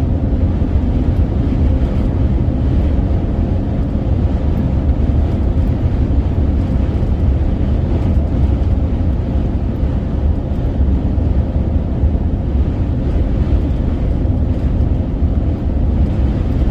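Steady, loud road and wind noise heard from inside a moving vehicle driving through strong wind, the rumble heaviest in the low end.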